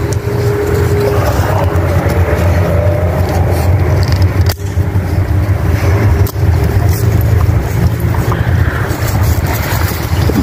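A steady low mechanical hum, like an engine running, with two sharp metal clicks around the middle from a chain being fastened around a tree trunk with pliers.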